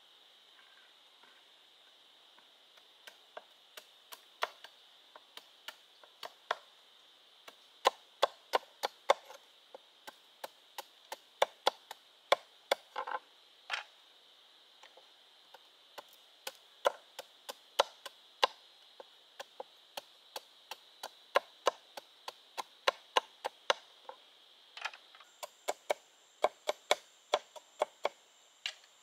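Bamboo being chopped with a blade: light, sharp strokes at an uneven pace, a few a second, with a short pause midway. Underneath, insects keep up a steady high drone, and a second, higher insect note joins near the end.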